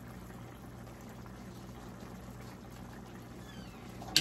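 Chicken adobo simmering in a pan on a gas stove: a steady low bubbling hiss over a faint hum. A single sharp clink near the end.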